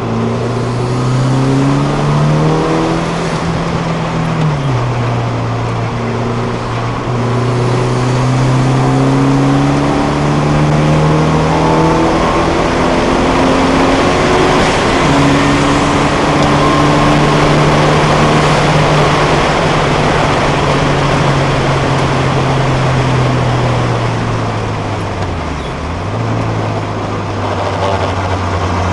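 Datsun 510's 1.6-litre four-cylinder engine heard from inside the car under hard acceleration on track. Its pitch climbs and drops sharply at two upshifts in the first half, then falls away as the driver eases off, with a brief dip near the end.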